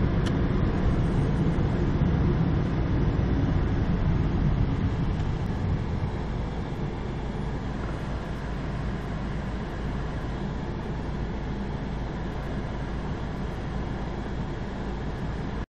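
Car engine and tyre rumble inside the cabin, easing off about six seconds in as the car slows to a stop at a red light, then a steady, quieter low hum while it waits. The sound cuts off abruptly near the end.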